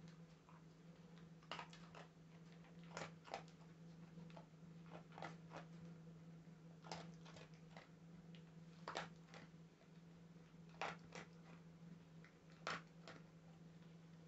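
Dog crunching dry kibble: short, sharp crunches at irregular gaps of a second or two, over a steady low hum.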